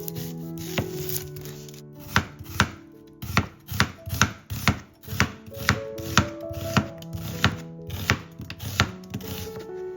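Kitchen knife chopping food on a cutting board: a single stroke about a second in, then a steady run of sharp chops at about two to three a second from two seconds in until near the end.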